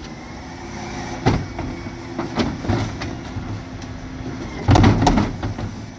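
Refuse truck's Terberg OmniDeks bin lift raising and tipping a wheelie bin, over the steady hum of the truck's engine and hydraulics. There are sharp knocks as the lift climbs, then a loud burst of banging about five seconds in as the tipped bin is emptied into the hopper.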